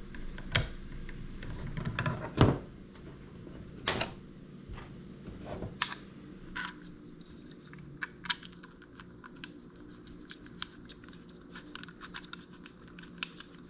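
Allen-head bolts being started into a metal articulating mounting bracket by hand: scattered clicks and knocks of small metal parts being handled. A few louder knocks come in the first six seconds, then a run of lighter ticks.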